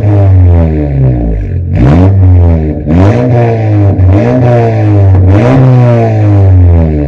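Honda Civic Turbo's 1.5-litre turbocharged four-cylinder revved in quick repeated blips through a full-system stainless-steel racing exhaust, loud, the pitch rising and falling about once a second.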